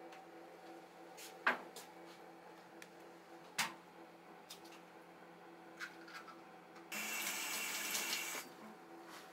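Faint room tone with a steady low hum and a few short clicks. About seven seconds in comes a second and a half of even hissing, like water running from a tap, which is the loudest sound.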